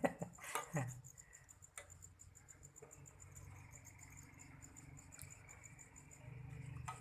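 Crickets chirping: a faint, even, high-pitched pulsing trill over a low hum.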